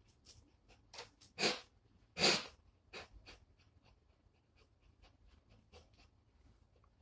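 Blue nose pit bull breathing hard through its nose while hanging by its clamped jaws from a rope toy, with two loud, forceful breaths about one and a half and two and a quarter seconds in, weaker breaths between them, and faint ticks.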